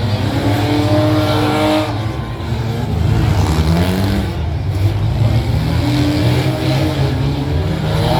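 Several demolition derby cars' engines running and revving at once, their pitches rising and falling against each other.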